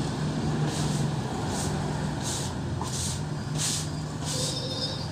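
About six short rustling, scraping noises in a row as sand is scooped and a woven plastic cement sack is handled and filled, over a steady low engine hum.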